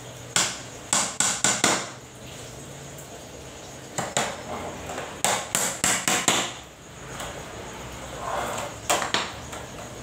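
Hammer blows on small wooden slats laid on a board, in three quick runs: about five strikes near the start, five or six in the middle, and two near the end.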